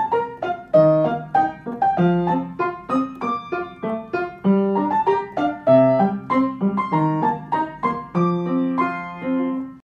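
Piano music: a gentle melody of single struck notes and chords, a few notes a second, each ringing and dying away, fading out at the end.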